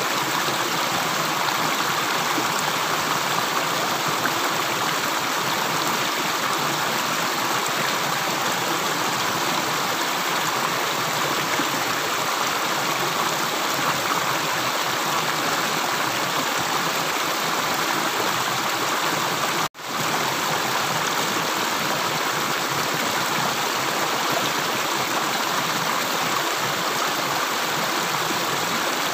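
Water running steadily in a stream, a constant even rush with no separate drips. About twenty seconds in it cuts out for a split second and comes straight back.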